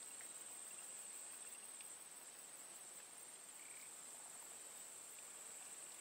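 Insects trilling: a faint, steady, high-pitched buzz that never stops.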